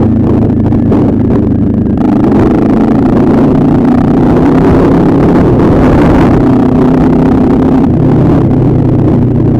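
Motorcycle engine running under way, loud and steady, its note shifting about two seconds in and again near the end, with wind rumble over the microphone.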